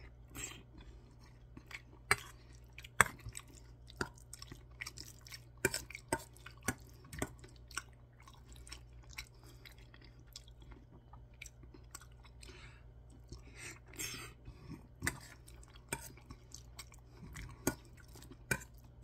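Close-up chewing of curry rice mixed with spicy canned tuna, with scattered sharp clicks of a metal spoon scooping and tapping against a stainless steel bowl.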